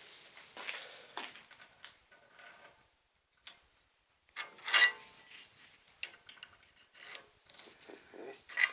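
Irregular clicks and knocks of small steel parts and hand tools being handled, with one loud, ringing metal clank about halfway through.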